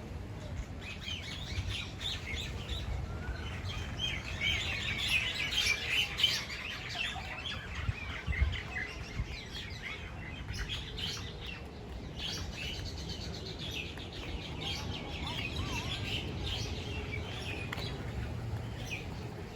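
A flock of small birds chirping and chattering, many calls overlapping in a dense, continuous chorus that is busiest in the middle, over a steady low rumble.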